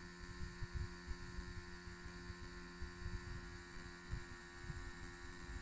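Pen-style tattoo machine set to 5 V running steadily, a low hum, while its needle draws a line into synthetic practice skin. Irregular soft low thuds sound underneath.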